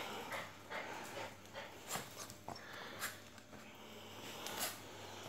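A small dog playing with a cloth toy on a towel: faint snuffling breaths with scattered soft clicks and rustles at irregular moments.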